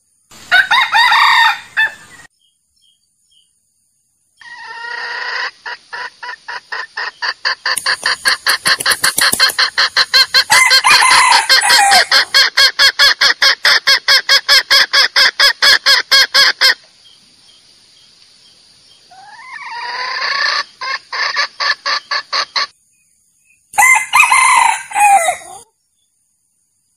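Junglefowl calls: a rooster crows four times, and in the middle a long run of sharp, evenly spaced clucks, about four a second, goes on for some twelve seconds.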